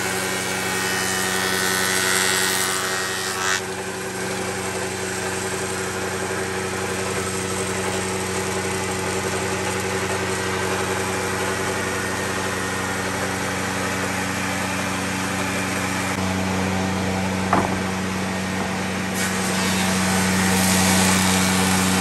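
Bench-top spindle moulder running with a steady motor hum. For the first three or so seconds a board is fed past its cutter, adding a harsher cutting noise; a single sharp click comes a little past halfway.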